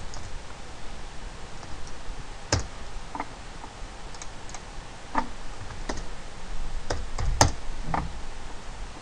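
Scattered computer keystrokes and mouse clicks: about eight separate sharp clicks at uneven intervals, the loudest about seven and a half seconds in.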